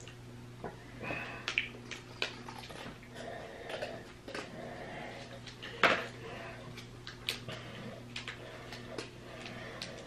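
Quiet handling noises from hands working a plastic icing bag: scattered small clicks and rustles, with one sharper knock about six seconds in, over a low steady hum.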